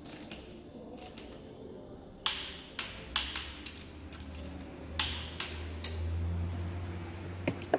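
Sharp metallic clicks, about seven in two groups, from a preset torque wrench tightening the conrod cap bolts of a Ford 2.0 Duratec engine to 29 Nm.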